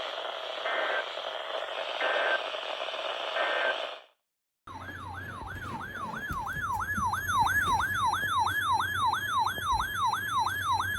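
Weather alert radio picking up a crackly, static-laden signal with three short beeps, then, after a brief cut-out, its alert siren wailing rapidly up and down, about three sweeps a second, signalling an incoming warning.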